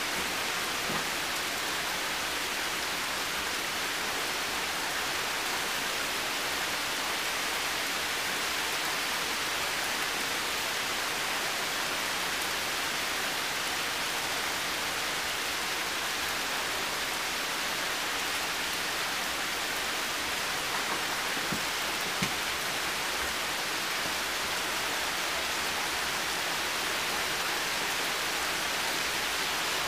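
Heavy rain falling in a forest, a steady even hiss with a few single louder drops landing now and then.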